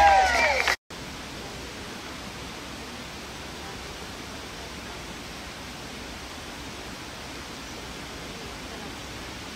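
A voice calls out loudly and is cut off sharply under a second in. Then a steady, even rushing noise of the indoor diving-pool hall.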